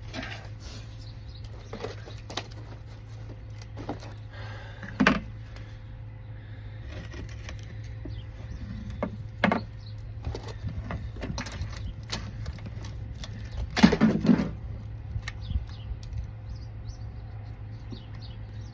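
Scattered clicks, taps and knocks of hand tools and PVC pipe being handled while the pipe is measured and marked, with a louder rattle about fourteen seconds in, over a steady low hum.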